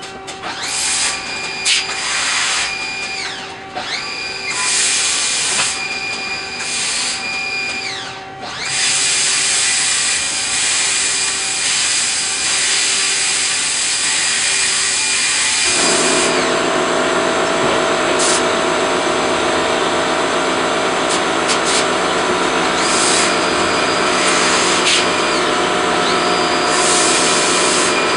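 Machine-shop machinery and power tools running: a high motor whine spins up, holds for a few seconds and winds down, several times. From about a third of the way in, a loud steady rushing noise runs under it, turning fuller and deeper around the middle.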